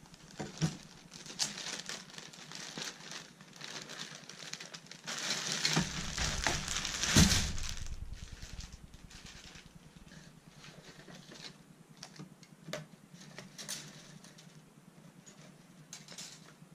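Thin clear plastic bag crinkling as it is pulled off plastic model-kit sprues, with a louder knock about seven seconds in. Then light clicks and rattles of the plastic sprue frames being handled.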